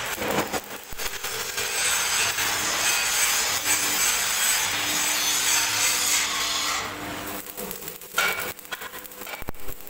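Stick arc welding on a steel concrete-mixer drum: a steady crackling hiss that breaks up about seven seconds in into short, intermittent bursts.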